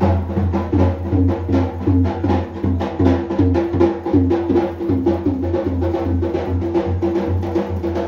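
Dhol drumming at a fast, steady beat, with a melody playing over the drums.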